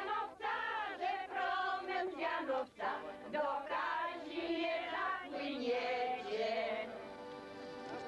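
A choir singing, several voices together in a sustained melody.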